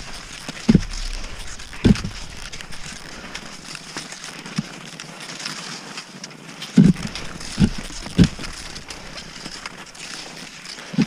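Cross-country skis and poles on snow: a steady hiss of gliding, broken by a handful of sharp crunching thumps, several of them clustered about seven to eight seconds in.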